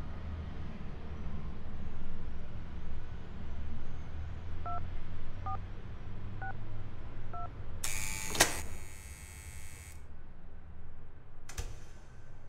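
Four short touch-tone keypad beeps, about one a second, as a number is dialled on a phone. They are followed by a loud burst of hiss-like noise with a sharp click that cuts off suddenly, then a shorter burst near the end, all over a low steady rumble.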